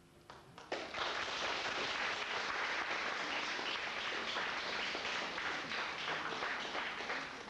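Audience applauding: a few first claps, then steady applause from about a second in, thinning out near the end.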